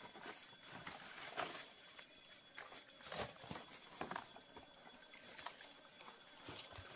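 Dry leaf litter and twigs rustling and crackling as someone crouches and works with their hands in it. The sounds come in irregular bursts, with a few sharper crackles about a second and a half, three and four seconds in.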